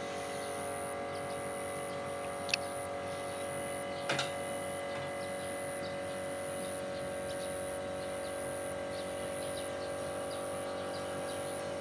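Lighting tower's generator set running steadily with an even hum, with faint bird chirps over it. A sharp click about two and a half seconds in and a short knock at about four seconds.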